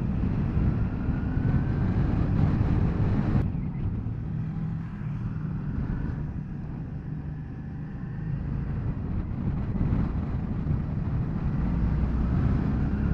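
Motorcycle engine running while riding, a steady low drone that eases off through the middle and builds again towards the end.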